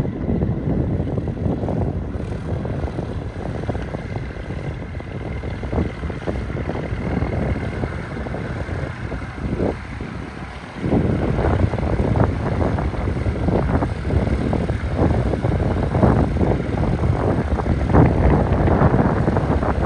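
Single-engine light sport aircraft's engine and propeller running at taxi power as it taxis. About eleven seconds in it gets louder, with gusts of wind buffeting the microphone.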